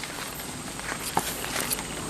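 Footsteps through dry leaf litter and undergrowth, with irregular crackles and twig snaps.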